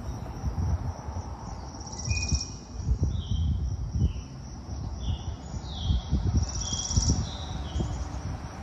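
Small birds chirping in short, repeated phrases, with a high buzzy trill twice, over an uneven low rumble.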